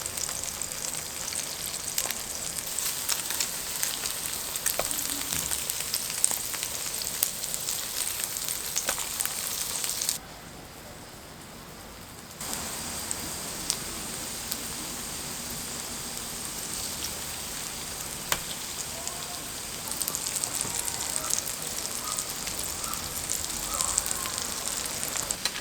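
Battered jeon frying in oil in a pan: a steady crackling sizzle with many small pops. It drops to a quieter hiss for about two seconds around ten seconds in, then the sizzling picks up again.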